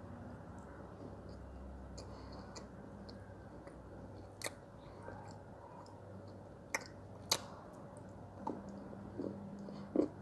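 Mouth sounds of someone chewing soft, water-soaked brown clay, with no crunch. A few sharp clicks come from a metal spoon against the glass dessert glass: one about halfway through and two close together a little later.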